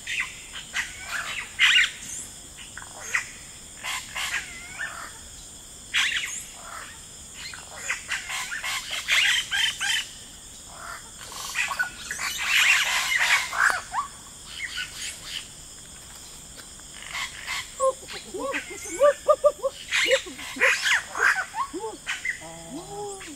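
Rainforest ambience: birds chirping over a steady, high insect drone. Near the end a run of short, lower-pitched rising-and-falling calls joins in.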